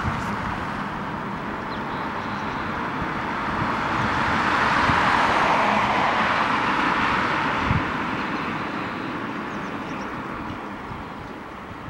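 Car passing by on an asphalt road: the tyre and engine noise swells to a peak about halfway through, then slowly fades as the car moves away. A single short knock sounds about two thirds of the way in.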